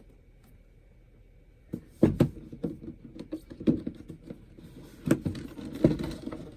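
Headphone packaging being handled and opened: irregular crackling and crinkling with sharp clicks, starting about two seconds in.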